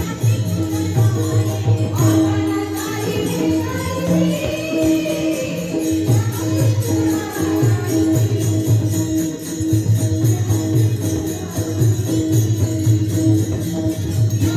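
Varkari kirtan music: voices singing a devotional chant over a steady jingling beat of small hand cymbals (taal), with a drum and a held steady tone underneath.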